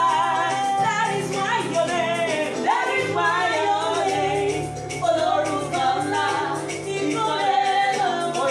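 Gospel song: singing voices over instrumental accompaniment with sustained bass notes.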